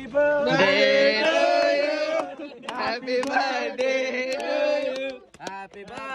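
A group of people singing or chanting together in unison, holding long notes in several phrases that break off briefly between them.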